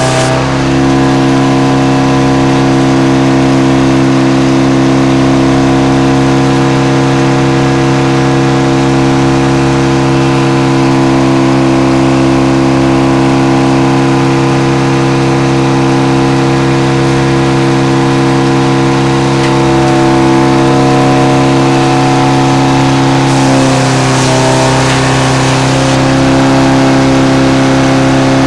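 Frick No. 00 circle sawmill running: a loud, steady mechanical drone from the engine driving it and the spinning saw, holding one even pitch. About 23 seconds in the tone shifts slightly.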